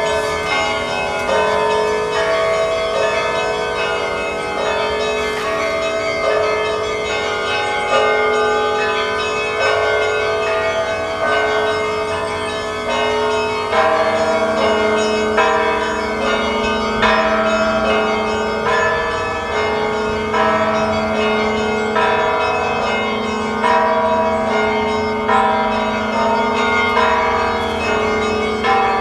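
Russian Orthodox cathedral bells ringing continuously: a quick repeating pattern of smaller bells over heavier strokes that come about every second and a half. A deeper bell joins in about halfway through.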